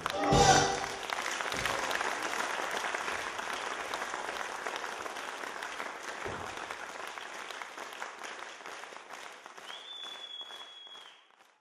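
Audience applause breaking out right after a final loud chord of the music, then gradually fading away before stopping abruptly near the end. A brief high steady tone sounds shortly before it stops.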